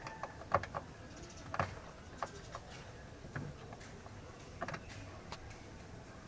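A screwdriver working a Torx screw out of a Ford Focus door's lock mechanism: light, irregular clicks and taps of metal on metal, a couple of them louder.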